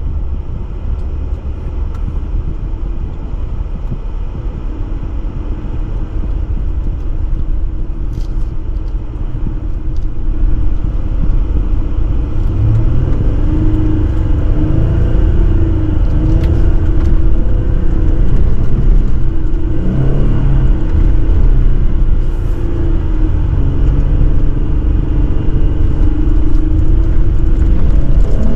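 A Jeep driving, its engine running under a steady low rumble; partway through it grows louder and the engine note rises and falls with the throttle.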